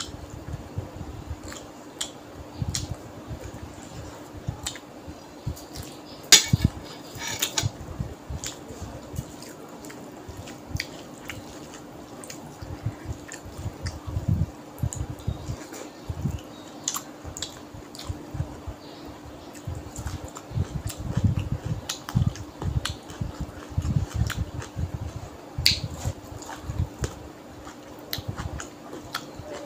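Close-up eating sounds: rice and fish curry squished and mixed by hand, then chewed, giving wet smacks, soft thuds and scattered clicks, with a denser run of sharper clicks about six seconds in. A steady low hum runs underneath.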